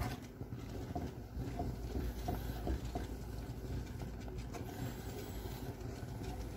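Wooden spoon stirring cream and butter through a thick tomato sauce in a non-stick frying pan, with soft scrapes and light taps against the pan, over a steady low rumble.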